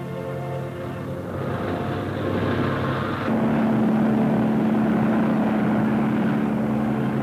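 Propeller aircraft engines droning as a plane flies overhead; the drone grows louder about three seconds in, with a steady low hum under it.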